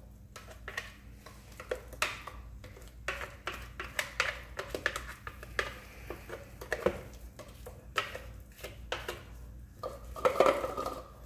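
A spatula scraping thick, wet batter out of a clear plastic food-processor bowl and knocking it into a mixing bowl. The scrapes and clunks are short and irregular.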